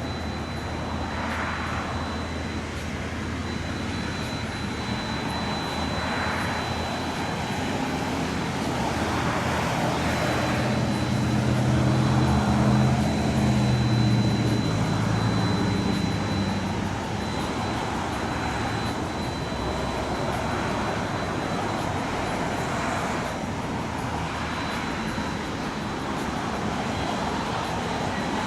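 A steady, loud rumble with a large engine's hum that grows louder about halfway through and then fades.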